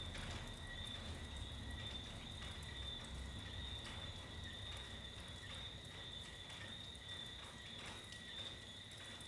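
A steady, high-pitched chorus of night-calling animals, with scattered light drips and a low rumble of storm wind underneath.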